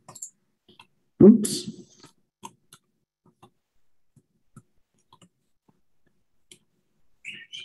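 Scattered faint computer mouse clicks while screen sharing is being set up, with one loud short sound about a second in.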